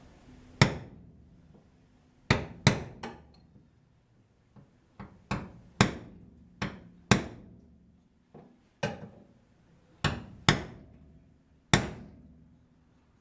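Hammer blows: about a dozen sharp strikes at uneven spacing, some in quick pairs, each with a short ring.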